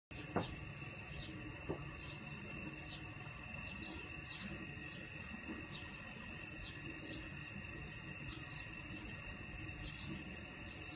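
Insects droning steadily at a high pitch, with short bird chirps repeating over it. Two sharp clicks in the first two seconds, the first the loudest sound here.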